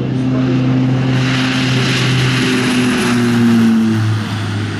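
Propeller-driven warbird flying past: a steady piston engine drone swells as it approaches, then drops in pitch and fades about four seconds in as it passes.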